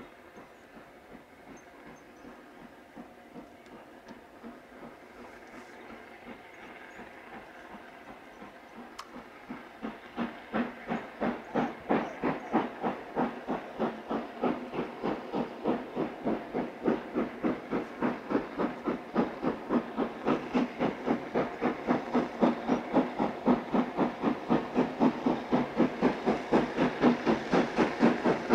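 Southern Railway Maunsell S15 class 4-6-0 steam locomotive No. 847 pulling away with its train, its exhaust beats coming in an even rhythm, faint at first and much louder from about a third of the way in as it draws near. Steam hisses from the open cylinder drain cocks.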